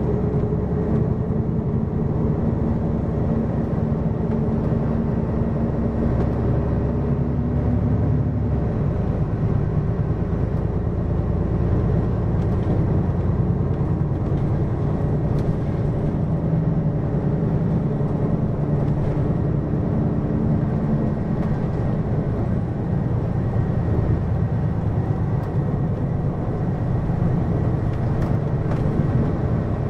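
Hino QKG-LV234N3 city bus running, its diesel engine and road noise heard on board. The engine note changes about eight seconds in, then carries on steadily.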